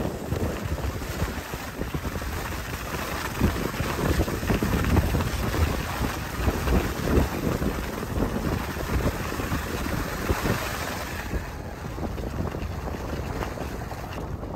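Wind rushing over the microphone while skiing downhill, with gusty low buffeting. The higher hiss drops away about eleven seconds in.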